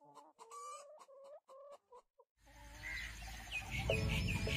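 A chicken clucking in a quick series of short calls. About halfway in, background noise rises with small birds chirping in a fast repeated pattern.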